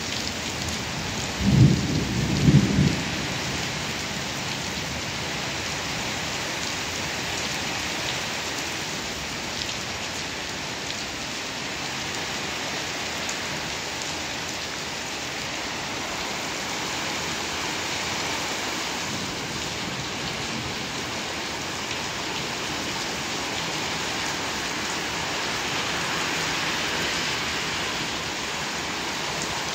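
Heavy rain pouring steadily onto asphalt and parked cars, with a short, loud, low rumble of thunder about two seconds in.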